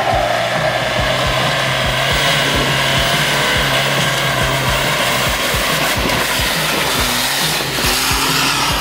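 Background music with a steady beat and a held bass line, over a steady mechanical hiss from off-road pickup engines working the rocky track.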